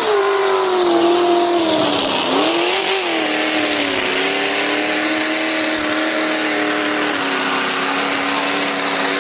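Mud truck's engine running hard at high revs while ploughing through a mud bog pit. The pitch dips about two seconds in, climbs back a second later, then holds steady, easing down slightly near the end.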